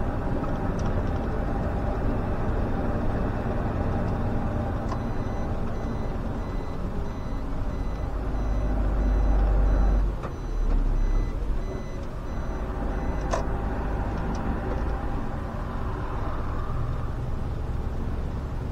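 SOR CN10.5 bus's diesel engine running under way. From about five seconds in a high electronic beep repeats for some eight seconds; the engine pulls louder around eight to ten seconds in, then drops off suddenly, and a sharp click follows near thirteen seconds.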